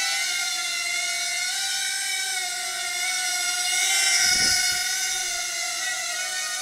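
Hubsan H107D micro quadcopter flying: the high-pitched whine of its four small coreless motors and propellers, wavering in pitch as the throttle changes. A brief low thump comes about four seconds in.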